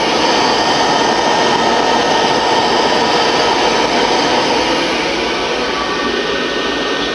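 A boiler running after cutting in, giving a loud, steady rushing noise, making too much noise to talk over.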